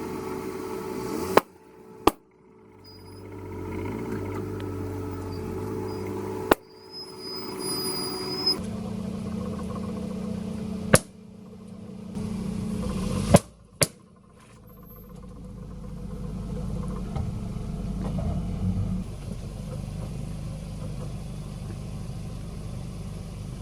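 A car engine running slowly as the car rolls over objects, broken by several sharp, loud pops and cracks as things are crushed under the tyres.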